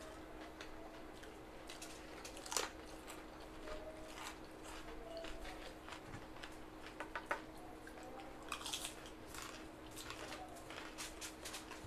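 Several people chewing, biting and smacking their lips while eating by hand, with scattered small crunches and clicks of food being handled. A faint steady hum runs underneath.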